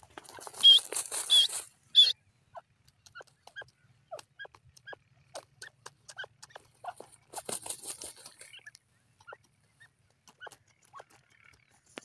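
A grey francolin scratching and dust-bathing in loose, stony soil. Two bursts of scraping, rattling grit come, one at the start and one about seven seconds in, with a few short high squeaks in the first two seconds and scattered soft ticks between the bursts.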